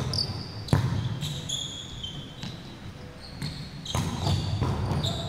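Volleyball rally in a large indoor gym: a few sharp smacks of the ball off hands and arms, the loudest about a second in and two more near the end, with sneakers squeaking on the court floor in between.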